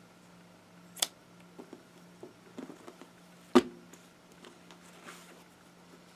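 Scissors cutting the string binding a scrunched tie-dye shirt: a sharp snip about a second in and a few faint clicks, then a louder clack about three and a half seconds in as the scissors are set down in a stainless sink. Faint rustling of fabric and string follows as the bound shirt is pulled open.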